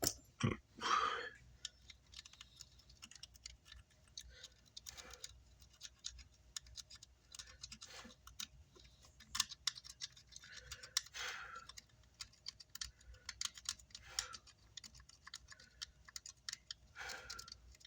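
Scattered small clicks, taps and scratches of hand tools working on an amplifier circuit board, with a handful of short scrubbing strokes, as in cleaning flux off the board.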